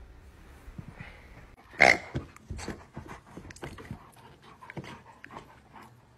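A dog making short sounds: one loud, brief pitched cry about two seconds in, followed by a run of quieter short noises and soft clicks.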